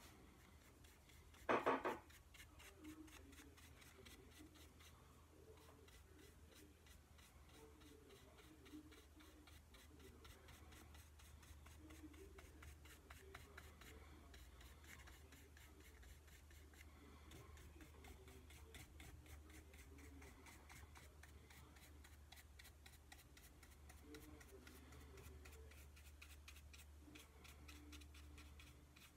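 Faint scratchy rubbing of a flat bristle brush dry-brushing paint across a small wooden sign, going on in irregular strokes over a low steady hum. A brief louder noise about one and a half seconds in.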